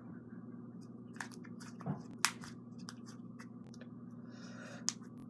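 A few scattered clicks and crackles from a container of slime being handled and opened and the slime being worked by hand, over a faint steady hum.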